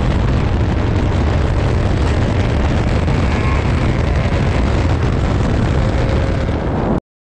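Loud, steady wind and road rush from a car at highway speed, with heavy wind buffeting on the camera microphone covering any engine note; it cuts off suddenly near the end.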